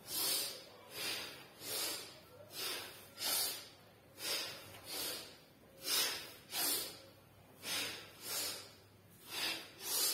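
A man breathing hard and rhythmically through the nose, about one short forceful breath every three quarters of a second. Each breath is paced to a quick side-to-side bending exercise: out as he bends to each side, in as he passes through the middle.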